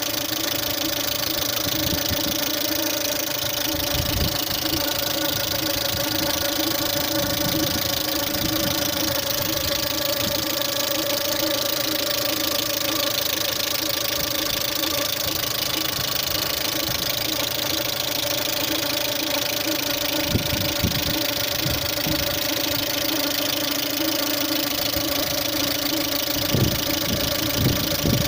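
Car engine idling steadily with a rapid ticking knock from the hydraulic valve lifters, which are knocking after a full engine overhaul. A few dull bumps come briefly in the middle and near the end.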